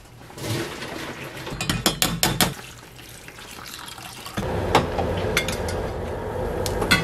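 Stainless steel pot and mesh strainer clinking and clattering. Then, from about four seconds in, a steady stream of water is poured into the pot over chopped lemon peel, rinsing it.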